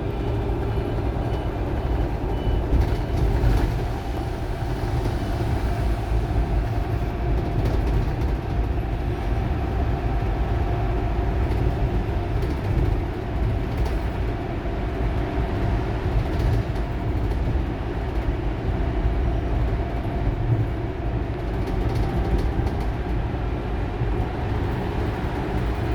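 RAC RAC-700-ELCB battery-electric city bus under way, its traction motor running with a faint wavering whine over steady low road rumble. The motor noise is one the recordist flags as abnormal.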